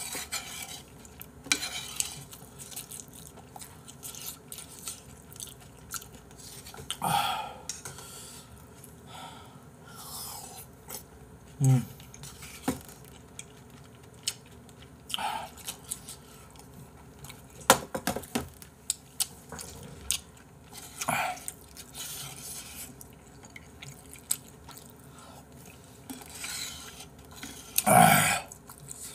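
Close-up eating sounds: chewing spicy braised chicken stew, with a spoon clicking and scraping against bowls. Scattered light clicks, a few louder ones, and one louder noise near the end.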